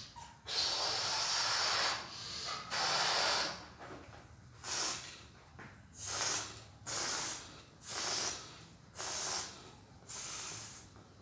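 Breath blown into a rubber balloon to inflate it, followed by a series of short hisses, about one a second, as air is let out of the balloon's neck in spurts to push a plastic cup along.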